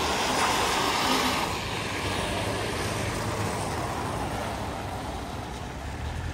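Street traffic noise: a car going by, loudest in the first second and a half, then slowly fading away.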